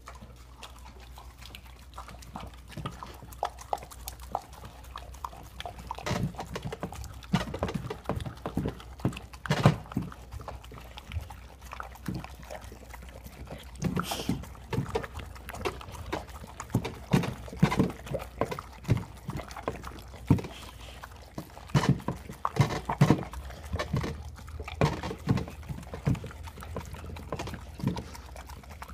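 Dogs eating raw food: irregular chewing and smacking, sparse at first and much thicker from about six seconds in.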